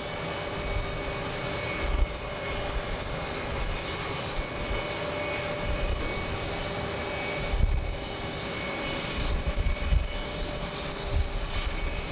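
A Boeing 737 MAX 8's CFM LEAP-1B turbofan engines running at takeoff thrust during the takeoff roll: a steady jet noise with a few held whining tones. Low gusts of wind rumble on the microphone now and then.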